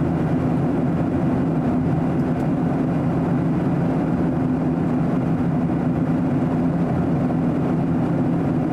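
Steady in-flight cabin noise inside a Boeing 737-800: the constant drone of its CFM56 turbofan engines and rushing airflow, with a steady low hum underneath.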